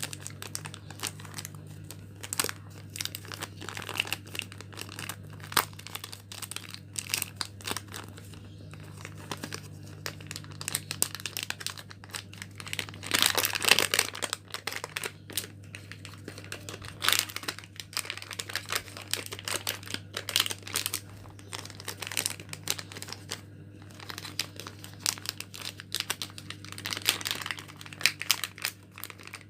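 Plastic coffee sachet wrappers crinkling as they are folded by hand, with irregular crackles throughout and a louder burst of crinkling about halfway through. A steady low hum runs underneath.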